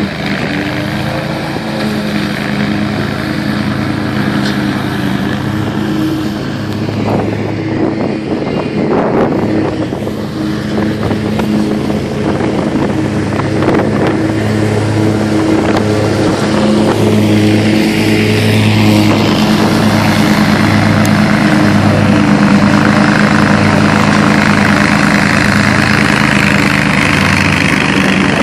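Hustler Super Z zero-turn mower running at a steady engine speed as it cuts through tall dry grass, a steady engine drone with a rushing noise over it. It grows louder in the second half as the mower comes closer.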